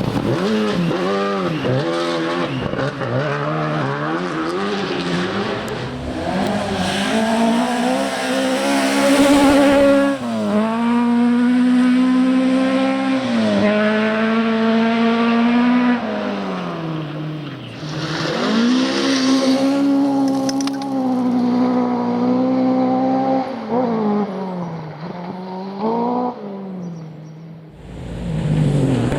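Rally car engine revving hard through the gears, its pitch climbing and dropping sharply at each gear change, several times over. Near the end it fades away and another engine comes in.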